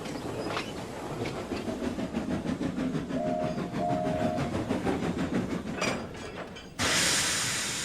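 Steam locomotive running with a steady beat of exhaust chuffs and rail clatter, with two brief tones near the middle. Near the end a sudden loud hiss of released steam cuts in and slowly dies away.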